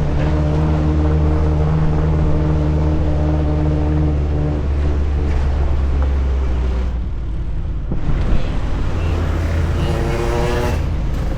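Suzuki Jimny engine running steadily while driving. Its note changes about seven seconds in, and a higher whining tone rises and falls near the end.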